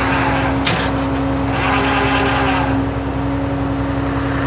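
Flatbed tow truck's engine and hydraulics running, a steady drone with a constant whine, as the winch is set to pull a car onto the bed. A single sharp click comes a little under a second in.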